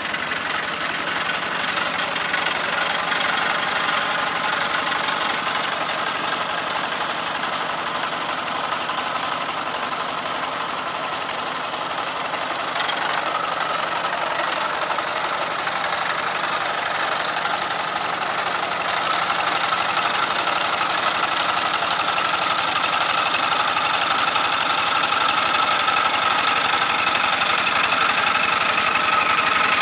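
Old Kubota single-cylinder diesel engine on a two-wheel hand tractor, running steadily under load as it pulls through a flooded rice paddy to level it. It grows a little louder in the second half.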